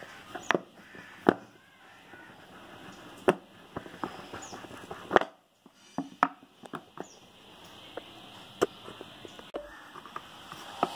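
A cardboard smartphone retail box being opened by hand: the lid is slid off, and the lid and base are set down on a hard stone floor with several sharp taps and knocks, with soft cardboard rubbing and scuffing in between.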